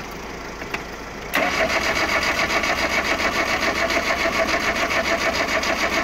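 A ZAZ Slavuta's engine being cranked by the starter motor: a click, then about a second in the starter begins turning the engine over in an even, fast rhythm. The engine does not catch. It has not been started in five years, and the men then find it has no spark.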